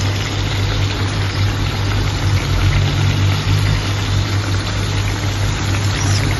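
Steady low hum with a hiss over it, without change: a gas stove burner running under a kadhai of chicken curry cooking.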